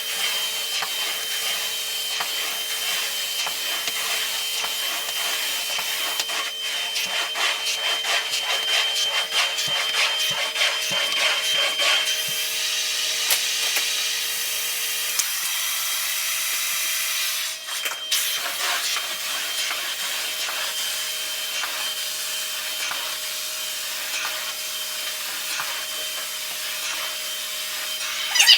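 Carpet-cleaning equipment running: a steady machine whine under a vacuum-like rush and scrubbing against the carpet pile. The rush grows louder in the middle and dips sharply for a moment about two thirds of the way through.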